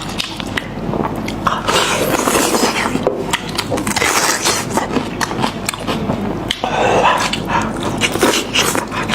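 Close-miked eating: wet chewing, lip-smacking and gnawing on goat head meat, with many irregular sharp clicks and crackles.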